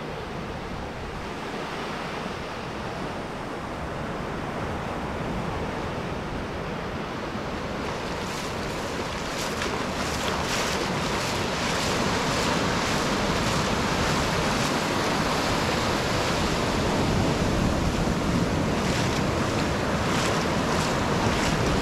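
Small sea waves breaking and their foamy wash running up and back over the sand, with wind buffeting the microphone. The surf grows louder through the second half, with a fizzing hiss of foam.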